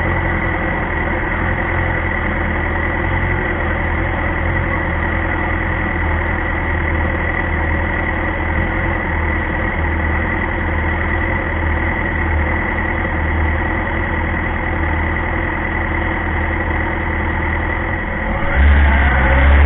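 Racing superbike engine idling steadily in neutral, heard close up from the bike itself. Near the end the revs rise sharply and it gets louder.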